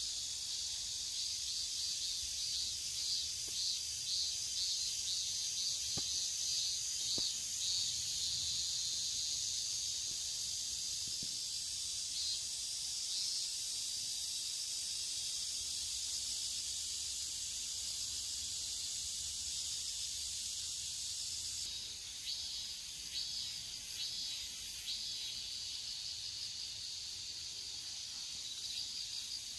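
Insect chorus in the grass: a steady, high-pitched chirring made of quick pulses, with a second, higher chirring joining about three-quarters of the way through.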